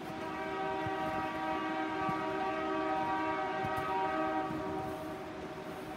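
Freight locomotive air horn sounding one long blast of about four and a half seconds, a chord of several notes that fades away near the end.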